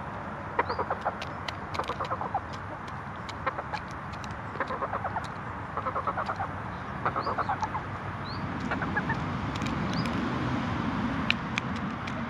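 Hens giving short runs of soft, rapid clucks over and over while pecking grain, with sharp ticks of beaks striking the grain in a plastic scoop and a few brief high chirps. About two-thirds of the way through, a low steady rumble of passing traffic rises beneath them.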